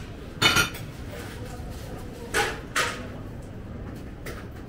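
Café-bar crockery and cutlery clinking: one sharp ringing clink about half a second in, then two shorter clatters a little after two seconds, over a low steady room hum.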